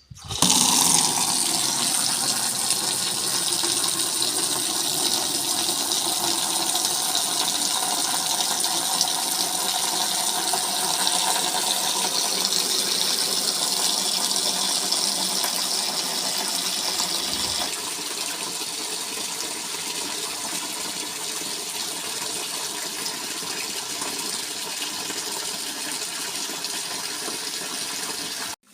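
Water running steadily from a tap and gushing into a container, as when filling a basin or bucket for hand-washing laundry. The flow eases slightly about two-thirds of the way through.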